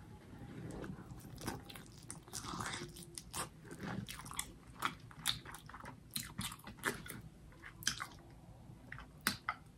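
Close-up mouth sounds of someone chewing a bite of grilled peri-peri chicken: many faint, irregular wet clicks and smacks.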